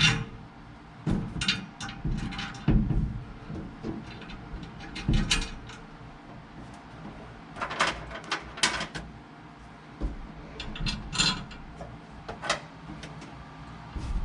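Irregular clinks and knocks of metal hardware being handled: washers, bolts and a steel bracket being set in place, with a few duller thumps.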